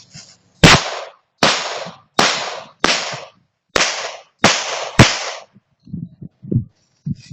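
Seven shots from a 1911 pistol fired at a steady pace, a little under a second apart, each with a short echoing tail. A few soft knocks follow the last shot.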